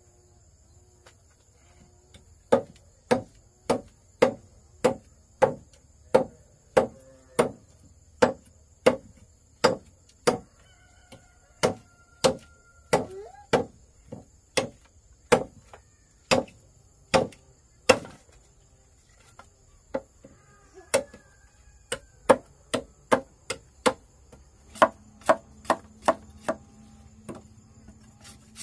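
Steady chopping with a blade, sharp strikes at about two a second with a short break about two-thirds through.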